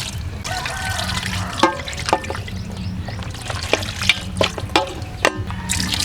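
Water being poured into a pot of cut chicken and ground spice paste, with several sharp clinks and knocks of the vessels.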